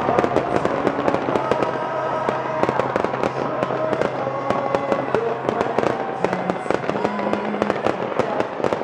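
A fireworks show going off: a dense, irregular run of bangs and crackles from bursting shells and spark fountains, with no let-up.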